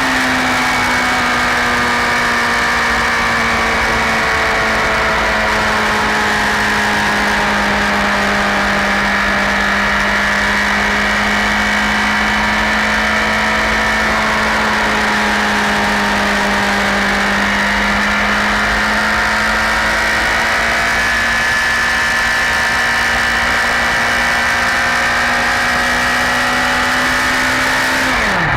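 Honda CBR1000RR SC57's inline-four engine held at a steady high rev, its pitch drifting only slightly, then dropping sharply near the end.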